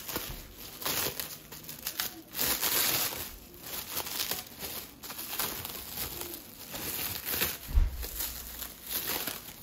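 Clear plastic cling wrap crinkling and tearing in irregular bursts as it is pulled off a small wooden toy bird by hand. A dull low thump about eight seconds in.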